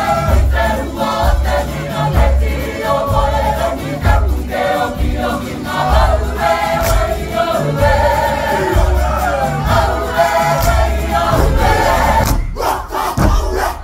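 A group of voices singing together over a steady low beat, with a short break near the end.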